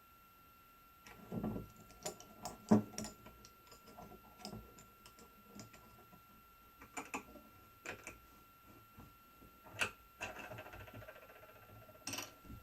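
Irregular small clicks, taps and knocks of tools and parts being handled on a soldering bench, the sharpest about two seconds in and near ten seconds, over a faint steady high whine.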